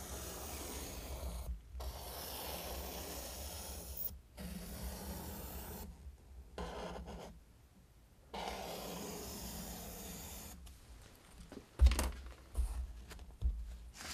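Pencil lead scratching along the cut edge of a mat board, drawn in several long strokes of one to two seconds each as the opening is traced onto mat board beneath. A few sharp knocks near the end as the boards are handled.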